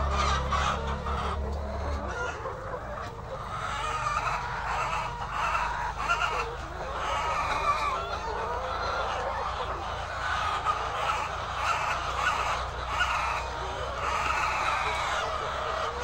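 A large flock of hundreds of white laying hens clucking and calling all at once, a dense steady chorus of overlapping calls. A low hum underneath stops about two seconds in.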